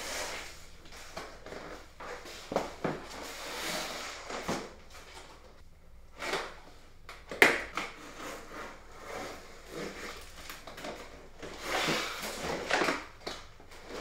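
Large cardboard shipping box being handled and cut open: irregular scraping and rustling of cardboard with several knocks, the loudest a single sharp knock about halfway through.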